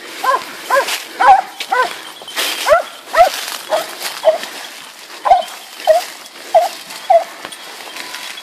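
Hunting dogs barking on the chase of a wild boar, giving tongue in a steady run of about two barks a second that stops shortly before the end.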